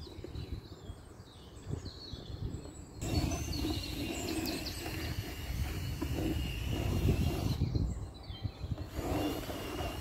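Outdoor ambience with an irregular low rumble of wind on the microphone. It gets louder abruptly about three seconds in, and a faint steady high tone runs through the middle and again near the end.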